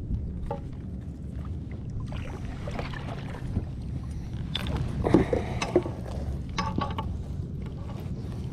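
Scattered knocks, clicks and rattles of a flounder being handled and flopping on a measuring board aboard a kayak, over a steady low rumble.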